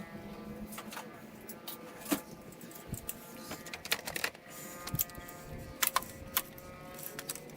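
Irregular sharp clicks and clinks of hand tools on metal parts while working in a car's engine bay.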